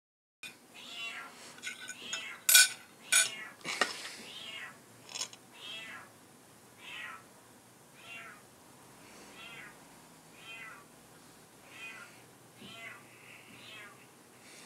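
A cat meowing over and over, short high meows about once a second. Several sharp clinks of a spoon and fork against a plate come in the first few seconds.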